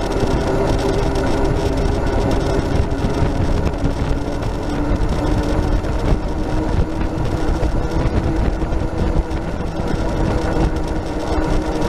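Road noise from a Max II 6x6 amphibious ATV being flat towed on pavement at road speed: a steady low rumble of tyres and wind, with a faint hum and small rattles throughout.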